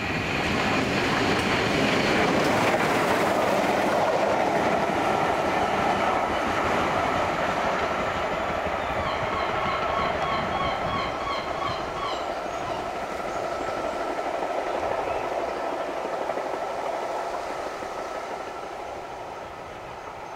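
LMS Royal Scot class three-cylinder 4-6-0 steam locomotive 46100, running light with its support coach, passing close by and running away down the line. It is a loud rush of wheels and engine that peaks a couple of seconds in and then slowly fades, with wheels clicking over the rail joints.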